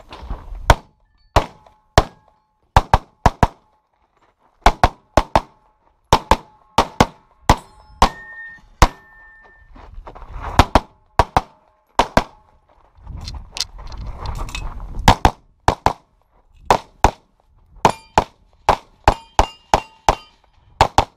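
Open-division competition pistol firing rapid shots, mostly in quick pairs (double taps) with short pauses between strings as the shooter moves, the strings coming faster near the end.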